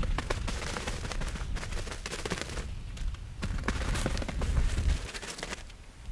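Snow being knocked off a sagging canvas tent roof: a run of irregular sharp cracks and knocks, with low rumbles about four to five seconds in.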